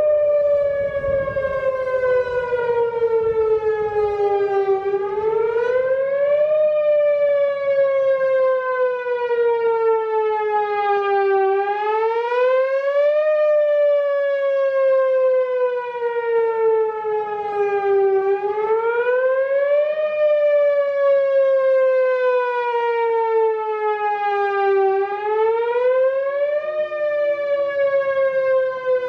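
Whelen WPS-4004 electronic outdoor warning siren sounding its whoop signal at a nominal 530 Hz. Each whoop rises in pitch in about a second and a half, then slides slowly back down over about five seconds. The whoop repeats about four times, steady and loud.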